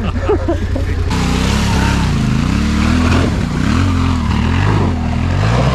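Trail motorcycle engine revving up and down in uneven surges from about a second in, as the bike is worked out of sticky clay mud.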